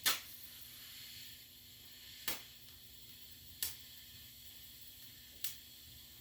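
Four sharp clicks a second or two apart over a faint steady hiss, the first the loudest.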